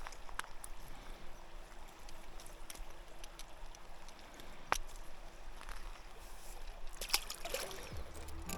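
Faint water trickling and lapping, with a couple of sharp ticks, one about halfway through and one near the end.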